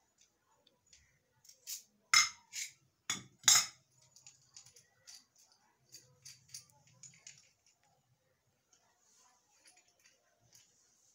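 Small steel bearing puller clinking against a ceiling fan's ball bearing as it is handled and fitted, metal on metal. A handful of sharp clinks come close together about two to three and a half seconds in, then lighter ticks and rattles.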